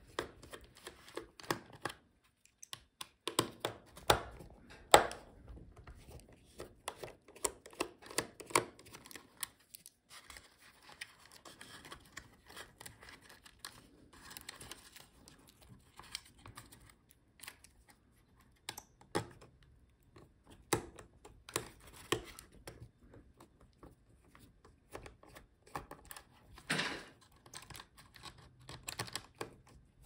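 Scattered light clicks, taps and scrapes of a small screwdriver working the screws and hard plastic of a laptop palm rest as a power button board is unscrewed and pried out. There are a couple of sharper knocks, and a soft rustle of tape and flat cable being handled in the middle.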